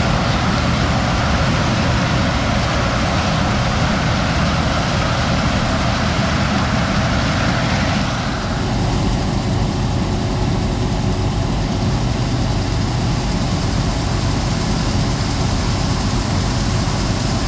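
Heavy vehicle engine running steadily, with a broad rushing noise over it; the higher part of the noise drops away about eight seconds in.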